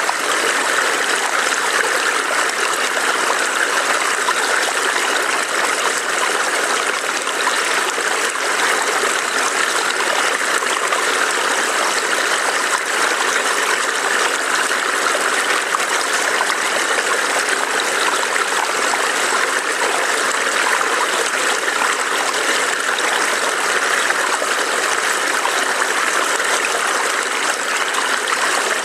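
Small forest stream burbling over rocks, a steady rush of running water with no breaks.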